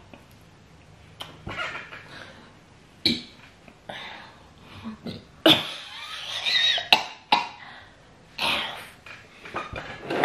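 Loud, messy open-mouthed chewing and lip-smacking while eating fufu and soup by hand: a string of irregular wet smacks and short mouth noises.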